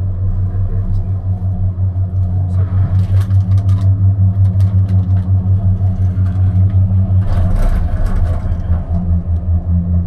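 Gondola cable car cabin riding along the line: a steady low hum that pulses in loudness, with a louder rattling rumble about seven seconds in as the cabin passes over a support tower.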